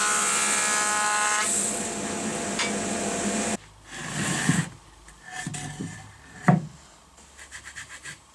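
Jointer running with a steady whine as a pine board is fed across its cutter head, stopping abruptly about three and a half seconds in. Then hands slide and rub planed wooden boards on a wooden workbench, with one sharp knock of a board about six and a half seconds in and a quick run of light taps near the end.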